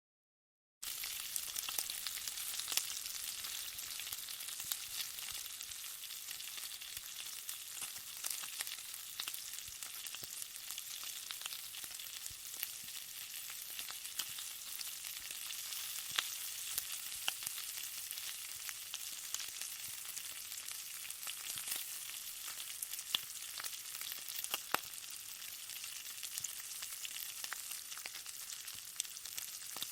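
Bacon sizzling as it fries: a steady high hiss crowded with sharp pops and crackles, starting just under a second in.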